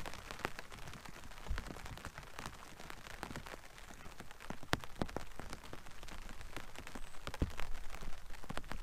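Rain pattering on the fabric canopy of a fishing brolly shelter: irregular drops tapping over a light hiss.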